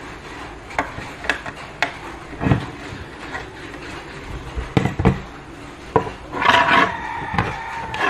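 Plastic clicks, taps and rubbing as screw-on antennas are twisted onto a Wi-Fi modem's plastic case and the modem is handled, in irregular single knocks. A short hum-like sound comes about six and a half seconds in.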